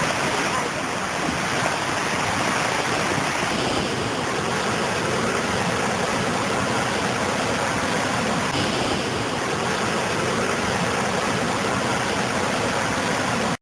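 Flash-flood water rushing down a desert valley, a loud steady rush that cuts off suddenly at the end.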